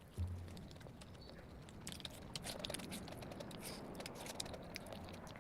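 Chewing of puri and potato curry: irregular small wet mouth clicks, with a short low thump near the start.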